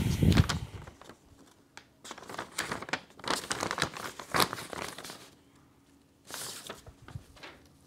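Paper crinkling and rustling in uneven bursts as a letter is handled, with a short pause about six seconds in.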